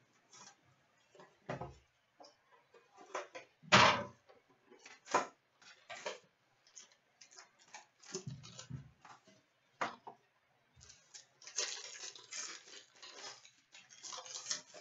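Handling and opening a box of hockey trading cards: scattered clicks and taps of cardboard and packs, with one louder knock about four seconds in. Plastic pack wrapping crinkles about three quarters of the way through.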